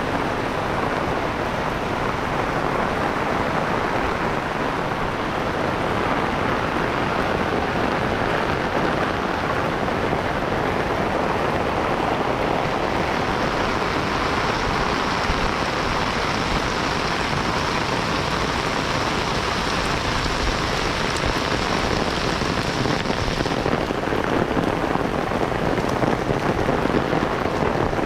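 Steady rain falling, an even hiss, with a brighter hiss layered in from about halfway that cuts off suddenly near the end.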